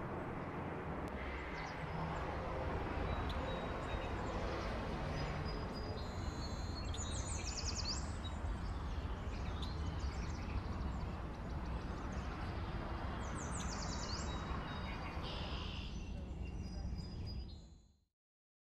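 Outdoor nature ambience: a steady rumble and hiss with birds chirping, a bright burst of chirps about seven seconds in and another about thirteen seconds in. It fades out near the end.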